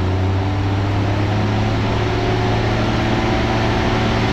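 Van's RV-10's six-cylinder piston engine running steadily at run-up power, about 2250 RPM, during the pre-takeoff engine check, heard through the aircraft's intercom audio.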